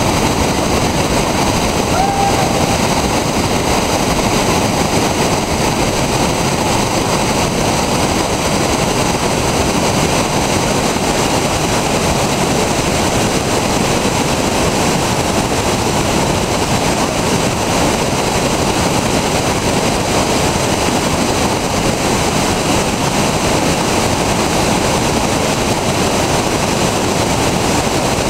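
Whitewater rapids: a loud, steady roar of river water churning over and around boulders.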